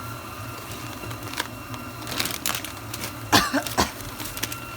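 A person coughing, a short run of loud coughs about three seconds in, set off by the hot, spicy chilli seasoning in the pan. A few light clicks come before it.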